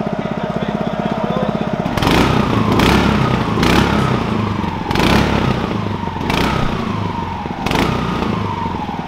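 Mud Skipper 7.5 hp Hemi engine on a surface drive mud motor idling, then revved in about six quick throttle blips starting about two seconds in. The pitch falls back toward idle after each blip.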